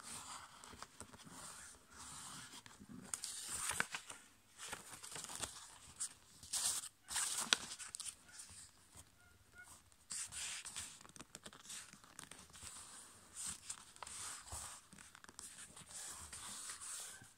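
A sheet of A5 copy paper being folded and creased by hand, with fingers rubbing and sliding along the folds. The rustling comes in irregular bursts, with a few sharper crackles.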